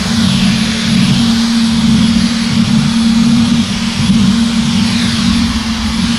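Dyson V15 Detect cordless stick vacuum running steadily with its Slim Fluffy cleaner head: a steady low motor hum and airflow hiss with a faint high whine.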